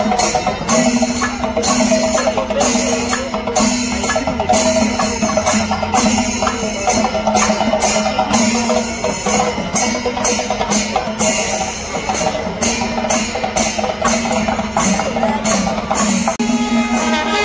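Percussion-led music: drum and cymbal-like strikes in a fast, steady rhythm over held pitched tones. Just before the end it changes to a different piece.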